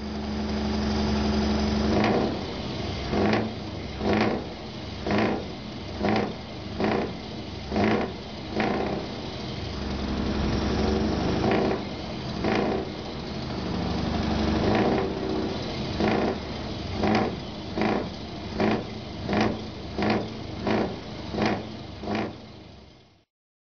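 Scania T580's V8 diesel engine idling through a straight-piped exhaust and being blipped over and over: a run of short revs about one a second, a steadier stretch in the middle, then another quick run of revs near the end.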